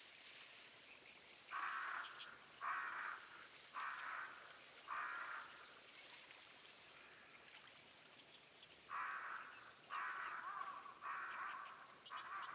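A bird calling: two runs of four calls, about one a second, with a pause of a few seconds between the runs.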